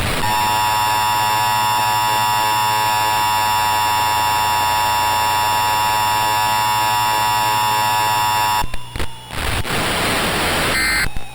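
Emergency Alert System attention signal: a steady two-tone alarm held for about eight and a half seconds that cuts off suddenly, followed by a couple of seconds of static hiss.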